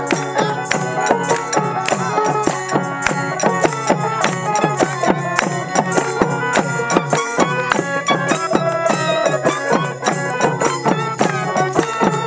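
Instrumental interlude of a Bangladeshi Baul folk ensemble: plucked dotara melody over sustained harmonium, with a hand drum and hand clapping keeping a quick, steady beat.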